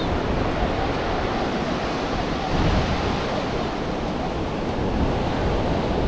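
Ocean surf breaking and washing up the sand in a steady wash, with wind rumbling on the microphone.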